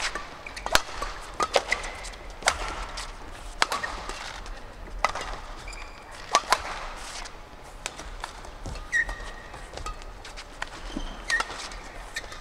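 Badminton rally: rackets striking the shuttlecock in sharp cracks roughly once a second, with a few short squeaks of shoes on the court.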